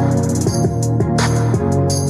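Pop music with guitar and a steady beat playing from a JBL Go 3 portable Bluetooth speaker.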